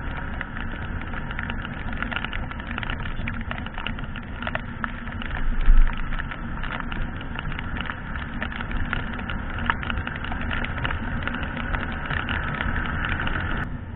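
Wind and heavy rain beating on a helmet-mounted camera on a moving motorcycle: a steady rush with dense crackling raindrop ticks on the housing, the motorcycle's engine running underneath. A single low thump about six seconds in, and the rain crackle drops away abruptly just before the end.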